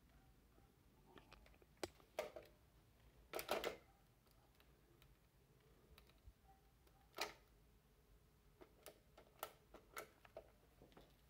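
Scattered clicks of intercom keys being pressed and the handset being handled. There are a few single clicks, a louder short clatter about three and a half seconds in, another sharp click past seven seconds, and a quicker run of clicks near the end.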